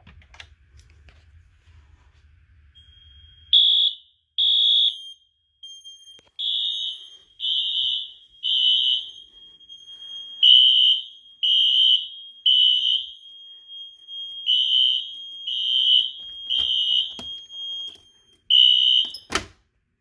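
Fire alarm horns sounding in the temporal-3 evacuation pattern, starting about three and a half seconds in: groups of three high beeps, then a pause, over a steady high-pitched tone. This is the alarm set off by the System Sensor i4 detector under test. A sharp click comes near the end.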